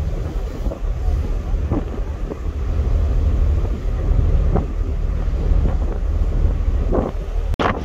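Wind buffeting the microphone on a ferry's open deck, a steady low rumble, cut off abruptly near the end.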